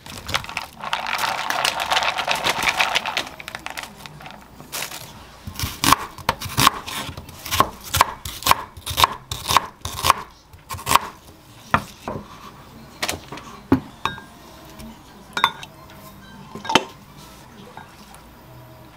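Plastic bag crinkling as bean sprouts are tipped out of it into a plastic bowl, then a kitchen knife chopping an onion on a wooden cutting board: a run of sharp chops about two or three a second, followed by a few scattered knocks.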